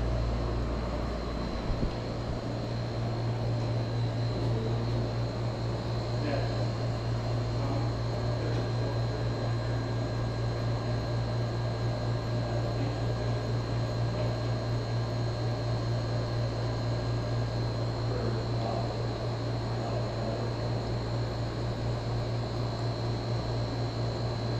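Portable spot-cooler air conditioner running: a steady low hum with a thin, high, steady whine over it.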